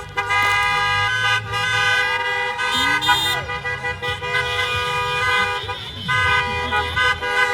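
Several car horns honking at once, their steady tones overlapping and held, over the low hum of car engines.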